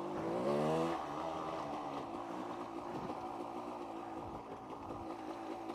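1990s KTM two-stroke dirt bike engine running. Its pitch climbs briefly in the first second, then settles into a steady drone.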